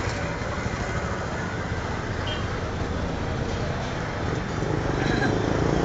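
Steady street background noise: a low traffic rumble under a general hiss, with no clear speech.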